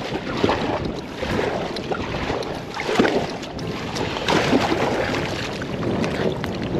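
Kayak paddle strokes splashing, with water rushing along the hull as the kayak is paddled through shallow water.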